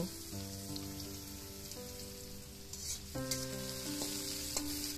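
Sliced onions sizzling gently in hot oil in a steel kadai, with a few light scrapes of a spatula as they are stirred. Soft background music with long held chords plays under the sizzle.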